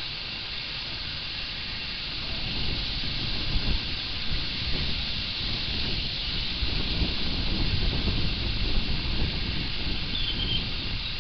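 Steady outdoor background noise: a low, uneven rumble of wind on the microphone that grows louder a few seconds in, under a constant hiss, with one short faint chirp of a small bird about ten seconds in.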